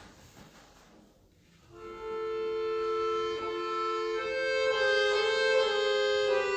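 Solo accordion playing slow, sustained chords: a chord fades into a brief pause, then a new held chord enters about two seconds in, and the upper notes move to new pitches near four seconds in.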